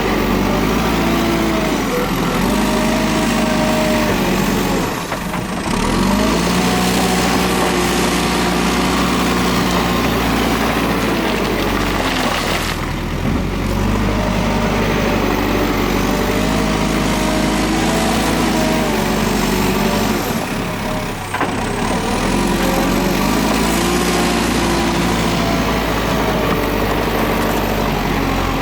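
JCB 3CX backhoe loader's diesel engine running under working load, its pitch sagging and picking up again twice, about five seconds in and again past twenty seconds.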